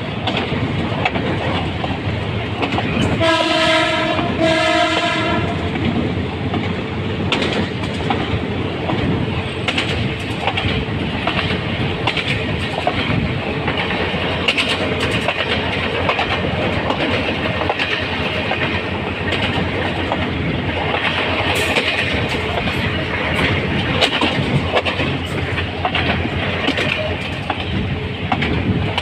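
Diesel locomotive running along the track, heard from the cab: a steady rumble with wheel clicks over the rail joints. About three seconds in, the horn sounds two blasts of about a second each.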